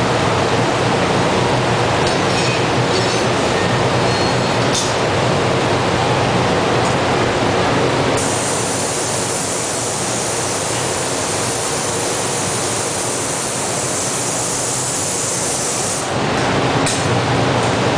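Steady, loud roar of a glassblowing workshop's gas-fired furnace and burners. For several seconds in the middle a brighter hiss rises over it, and a few light clicks sound about two to five seconds in.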